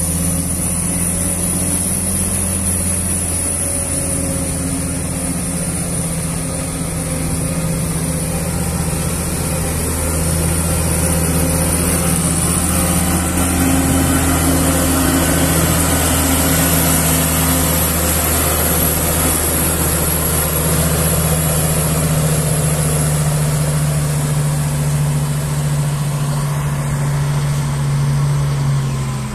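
Diesel engine of a Tadano 60-ton rough-terrain crane running steadily as the crane drives slowly past and away, growing a little louder about a third of the way in.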